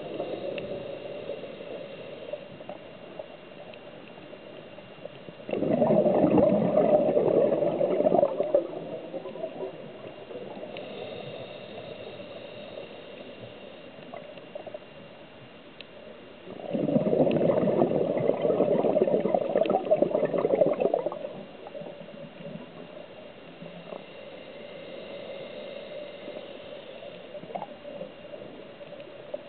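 A scuba diver's exhaled air bubbling out of the regulator in two bursts of about three to four seconds each, some eleven seconds apart, with a softer hiss between them.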